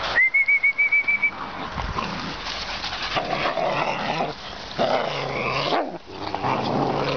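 A high trilling whistle lasting about a second, then a litter of puppies whimpering and yapping as they crowd around.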